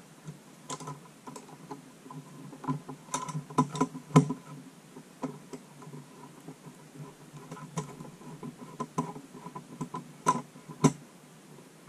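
Irregular small clicks and knocks of hands working on case fans and their cables in a computer case, a few louder taps about four seconds in and again near the end.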